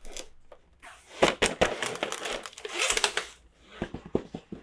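Plastic toy packaging being handled and unwrapped, crinkling in stretches with many sharp clicks and taps.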